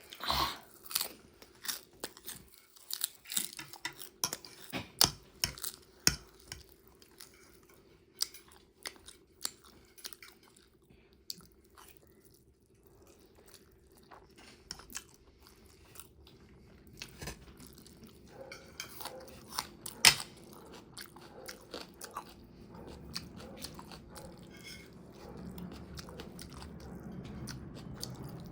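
Close-miked eating: crunchy bites and chewing of food, with many sharp crunches in the first ten seconds or so, then slower, sparser chewing. A faint steady hum runs underneath.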